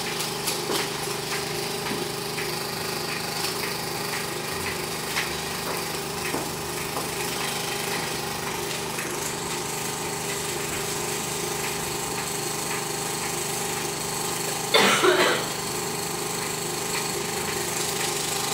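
Film projector running steadily, its motor and intermittent film mechanism making a continuous rapid mechanical clatter with a fixed hum. A brief louder noise breaks in about fifteen seconds in.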